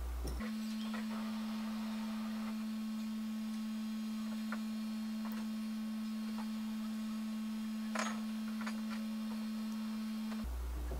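A steady electrical hum on a single pitch, starting just after the start and cutting off shortly before the end, with a few faint clicks, the clearest about eight seconds in.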